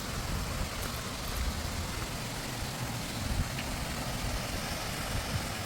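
Steady rushing noise of a waterfall, even and unbroken, with a low rumble underneath.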